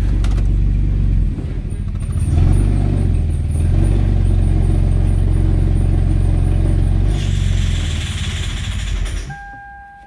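2009 Toyota Camry's 3.5-litre V6 running with a steady low drone, its note shifting about a second in as the car is put into drive. A hiss joins in near the end, then the engine sound falls away and a short electronic beep sounds. The engine makes no power, which the mechanic thinks may come from diesel in the tank.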